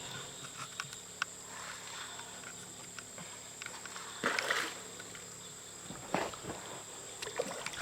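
Summer night insect chorus: a steady high-pitched drone, with scattered faint clicks. There is a short rush of noise about four seconds in and another just past six seconds.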